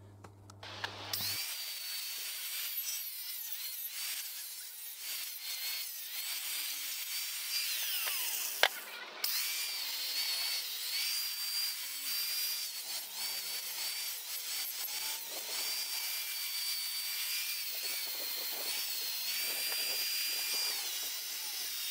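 Small angle grinder running against a cast-iron motorcycle cylinder head, a high motor whine over rough scrubbing noise that wavers as the disc is pressed on and eased off. It cuts out briefly with a sharp click about nine seconds in, then carries on.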